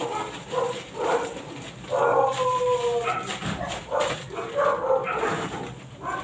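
A dog whining and yipping in a string of short calls, with one longer, slightly falling whine about two seconds in. Behind it a plastic bag of soil rustles as it is poured.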